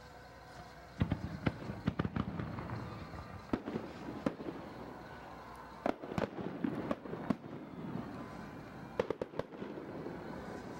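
Aerial fireworks shells bursting: a ragged series of sharp bangs, each trailing a low rumble, beginning about a second in and going on in irregular clusters.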